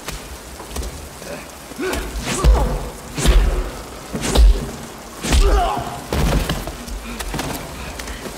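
Film fight sound effects: a run of about six heavy punch and body-blow impacts, roughly a second apart, with short grunts among them.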